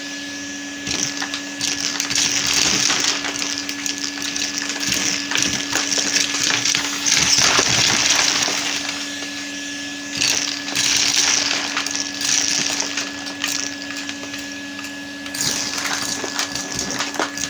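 Vacuum cleaner motor running steadily while it sucks up Lego bricks, which clatter and rattle in quick, irregular clicks as they are drawn in.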